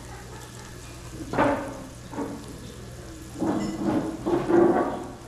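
Onion and tomato stir-fry sizzling in a hot pan while it is stirred. There is a sharp utensil scrape or knock a little over a second in, and a longer stretch of louder stirring near the end.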